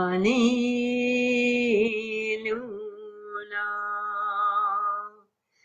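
A woman chanting a slow mantra unaccompanied, in long held notes: the pitch steps up just after the start, holds for about two seconds, drops a little, and the voice stops about five seconds in.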